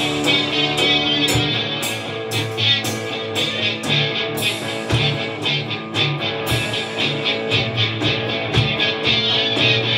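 Instrumental 1960s-style rock played live on two electric guitars and a Gretsch drum kit: chugging guitar chords over a steady drum beat, with a few ringing cymbal hits.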